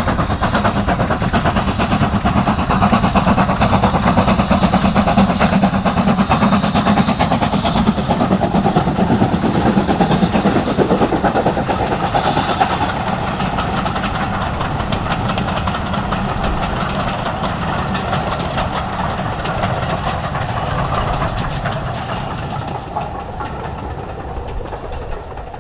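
Steam locomotive hauling a train of passenger coaches past, loudest with a hissing edge in the first several seconds, then the coaches rolling by on the rails, fading away near the end.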